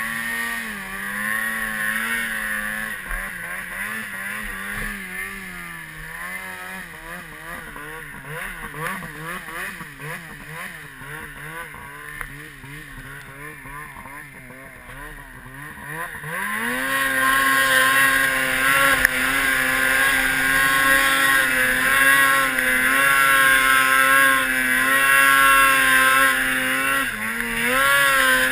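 Snowmobile engine running under load in deep snow. For the first half its pitch wavers up and down at lower throttle. About sixteen seconds in it revs up sharply and holds a high, steady pitch, dipping briefly near the end.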